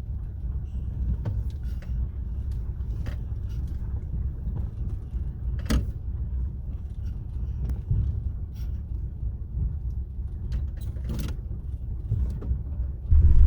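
Chevy's engine running at idle, a low steady rumble with scattered light clicks, getting suddenly louder near the end.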